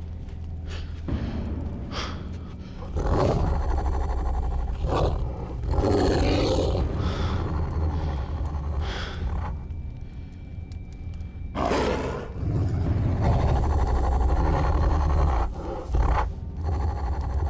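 Wolves growling and snarling out of the dark, several long snarls one after another over a steady low rumble.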